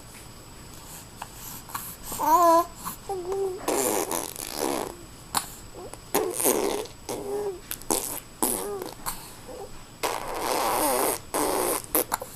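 Young boys making fart noises: several rasping blasts, the longest about a second and a half near the end, with a child's babbling voice between them.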